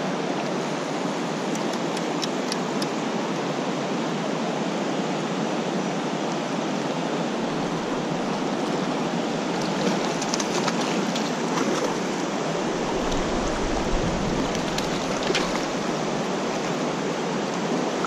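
Steady rush of fast-flowing creek water running through a riffle around the wading angler, with a few light splashes partway through as a hooked fish thrashes at the surface.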